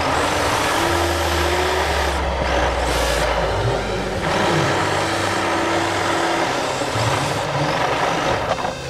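Onboard sound of a Yokomo YD2 electric rear-wheel-drive RC drift car driving and sliding round a concrete track: a steady din of motor, drivetrain and tyres, with a whine that rises and falls with throttle.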